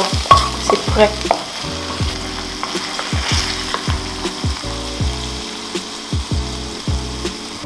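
Blended chili pepper sauce sizzling in hot oil in a frying pan while a wooden spoon stirs it and scrapes it out of the pan onto a plate.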